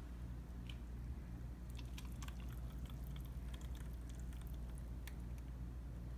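Thick blended mango purée poured from a blender jar into plastic cups: faint soft wet plops and small clicks, mostly through the middle, over a steady low hum.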